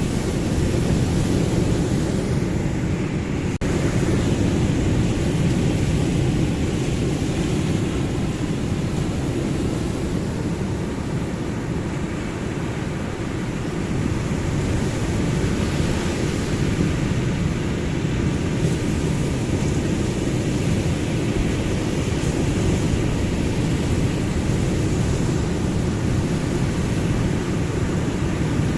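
Ocean surf as a steady, deep wash of noise, swelling slightly about halfway through.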